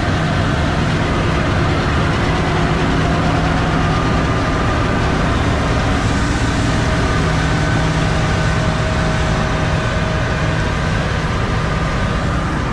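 John Deere X9 combine harvesting wheat close by: a loud, steady engine drone with a constant whine laid over it.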